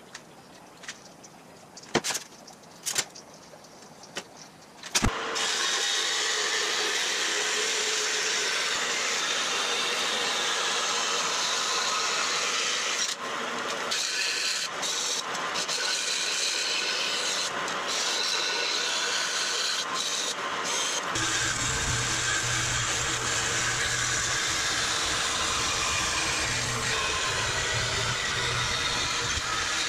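A few light clicks and taps of a steel part being handled, then a vertical bandsaw cutting steel plate: a steady, loud hiss of the blade working through the metal, with a low hum joining about two-thirds of the way in.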